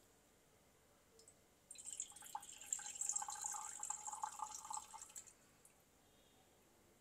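Ethanol poured in a thin stream from a glass beaker into a glass beaker of perfume oil blend, faintly trickling and splashing for about three and a half seconds from about two seconds in.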